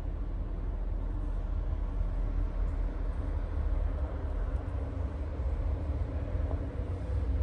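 Steady low vehicle rumble heard inside a car's cabin.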